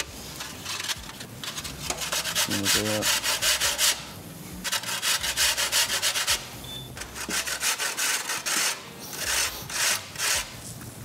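Baked tart shells rasped against a stainless-steel box grater to even off their edges: quick back-and-forth scraping strokes in three runs with short pauses between.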